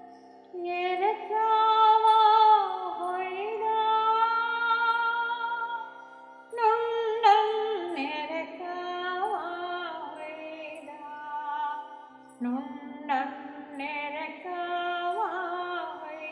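A woman singing a slow Kannada song setting of a poem, with long held notes and gliding ornaments over a steady low drone.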